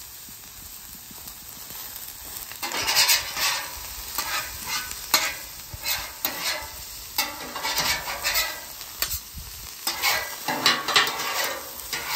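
Sliced mushrooms and onions sizzling on a hot steel flat top griddle. From about three seconds in, metal spatulas scrape and toss them across the cooktop in repeated, irregular strokes.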